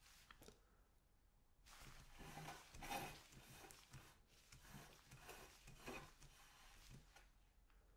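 Faint, irregular scraping and rubbing as a plate is turned on a tabletop by gloved hands, loudest about three seconds in.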